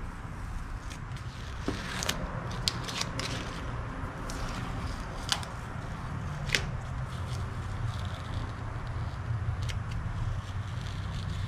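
Scattered light clicks and taps from handling the metal parts of an antique drill press, over a steady low hum.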